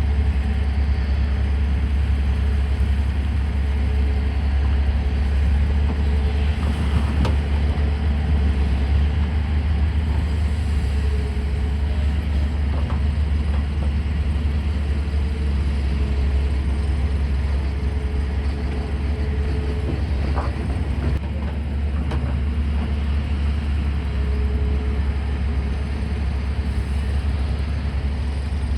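Heavy diesel engine of a Tata Hitachi hydraulic excavator running steadily under load while loading material, a deep even drone, with a couple of brief knocks about 7 and 20 seconds in.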